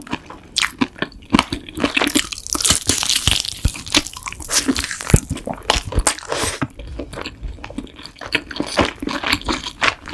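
Close-miked biting and chewing of a sauce-glazed fried chicken drumstick: an irregular run of crisp crunches and sharp clicks.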